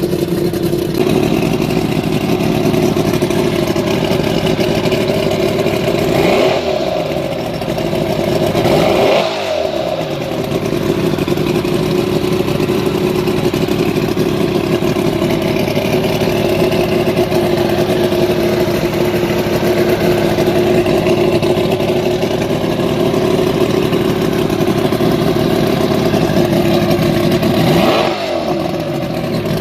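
Mercury 140 hp inline-six two-stroke outboard engine running steadily, with its revs swinging up and down briefly about six and nine seconds in and again near the end.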